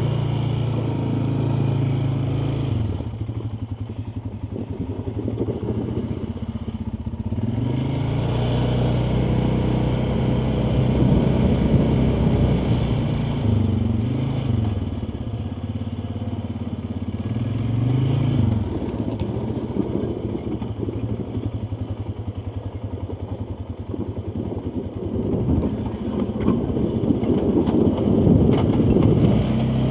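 ATV engine running over rough ground, its pitch rising and falling several times as the throttle is opened and eased off, with rattling and knocking near the end.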